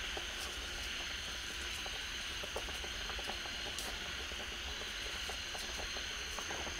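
A whole fish bubbling and sizzling in oil and sauce in a metal wok over a wood fire, with many small pops and crackles, over a steady high-pitched background drone.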